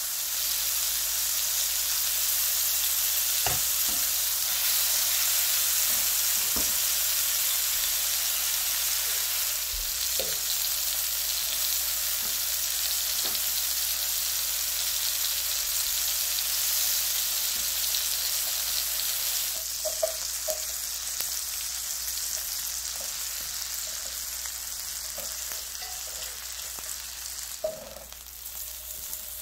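Steady hiss of food frying in butter in a cast-iron skillet, first tomato halves and sliced mushrooms, with a few light clicks scattered through. About two-thirds of the way through the sizzle drops in level, now from slices of bread frying in butter, with a few sharper taps near the end.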